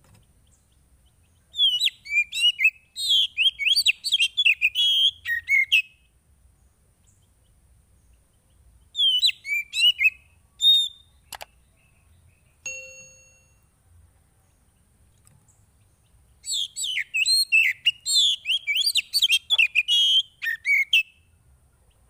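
Oriental magpie-robin singing loud, open full song in three bouts of rapid, varied whistles and chirps, with pauses between; a single sharp click midway.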